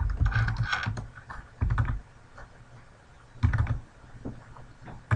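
Typing on a computer keyboard in several short bursts of keystrokes, with a pause of a second or so between them.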